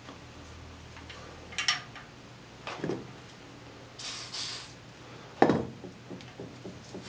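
A short hiss of aerosol lubricant sprayed onto a boiler sight-glass fitting about four seconds in, amid small knocks and rubbing from hands and a towel on the brass fittings. A sharp knock about five and a half seconds in is the loudest sound.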